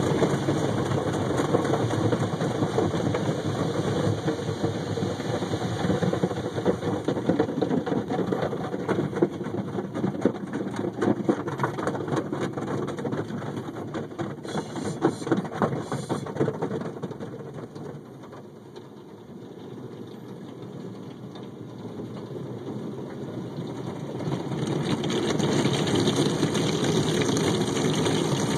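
Automatic car wash heard from inside the car: water spray rushing and drumming on the windshield and body. It eases off for several seconds about two-thirds through, then builds again near the end.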